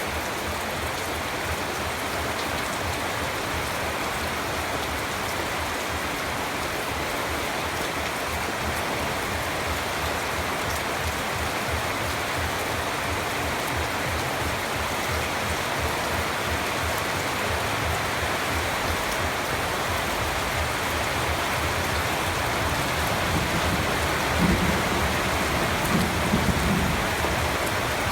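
Steady, dense rainfall pattering on surfaces, with a brief low rumble swelling a few seconds before the end.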